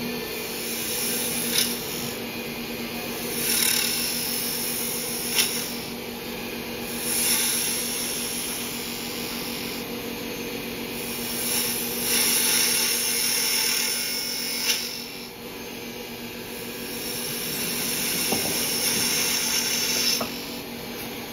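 Wood lathe motor humming steadily while a spindle gouge makes several slicing cuts on a spinning wooden mallet head. Each cut is a scraping rush of noise lasting one to three seconds, with a few sharp ticks between the cuts.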